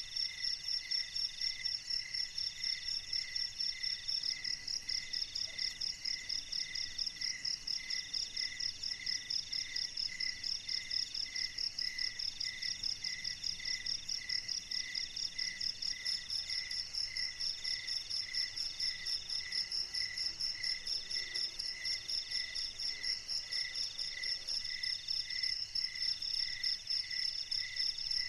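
A chorus of night insects, crickets among them, calling steadily. It holds a fast high pulsing trill, a lower trill in phrases of a second or so broken by short gaps, and a lower chirp about twice a second.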